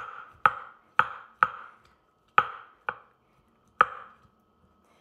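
Pestle pounding sugared strawberries in a mortar: seven sharp knocks at uneven intervals, each with a short ring.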